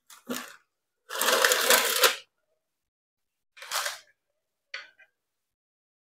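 A spatula scraping and clinking against the air fryer basket, with parchment paper rustling, as a pizza is slid out of the basket. There are several short bursts, the longest about a second in.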